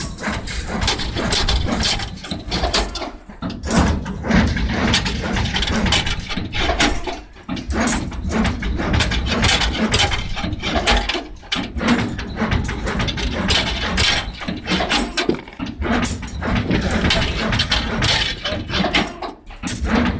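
Automatic rebar stirrup bending machine running: steel bar fed and bent into stirrups in repeated cycles, a steady mechanical clatter and whir that drops off briefly about every four seconds between cycles.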